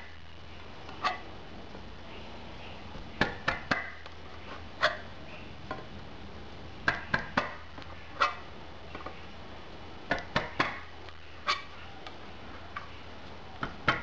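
A small pocketknife's blade being tapped down through the lid of a steel tin can, a series of sharp metallic taps coming singly and in quick runs of two to four as the lid is cut open.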